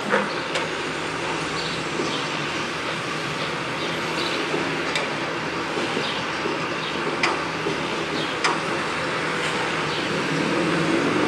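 Construction-site din: a steady mechanical rumble and hiss, broken by a few sharp knocks a second or more apart. The rumble grows louder near the end.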